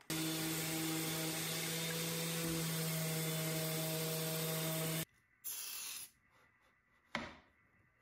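Random orbit sander running steadily, a plywood tray held against its pad to sand the edges; it has a steady hum and cuts off abruptly about five seconds in. A brief scuff and a single click follow near the end.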